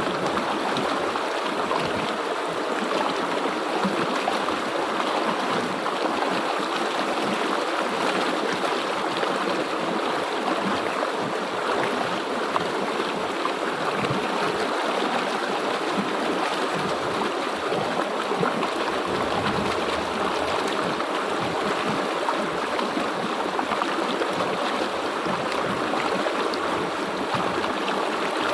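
Stream water flowing over rocks in a steady, even rush.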